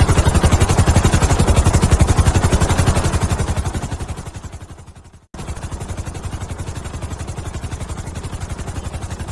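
Helicopter rotor thumping in a fast, even beat. It fades away over the first five seconds, breaks off, then starts again and runs steadily at a lower level.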